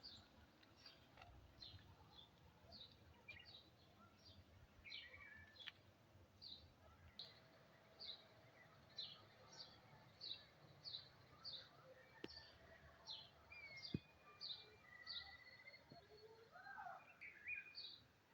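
Faint birdsong: one bird repeating short, high, falling chirps, roughly one every three-quarters of a second. Other birds add brief whistled notes, including a longer gliding call near the end.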